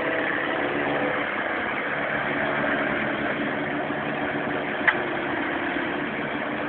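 A motor running steadily, with one sharp click about five seconds in.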